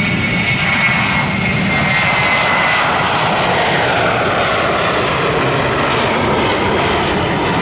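Jet airliner taking off: a loud, steady engine rumble with a high whine that slowly falls in pitch as it passes.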